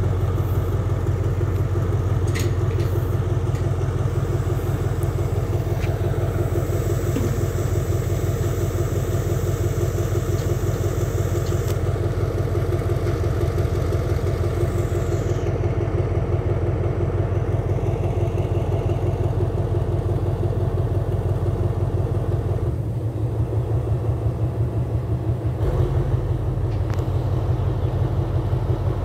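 Diesel locomotive engine running steadily at low revs, a deep, even hum whose note shifts about 23 seconds in.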